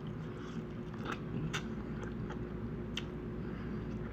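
A person chewing food close to the microphone, with a few sharp crunches.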